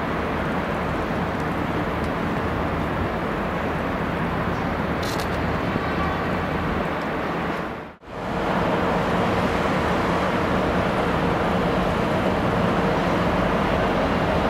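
Steady city traffic noise. It fades out briefly about halfway through and comes back at the same level.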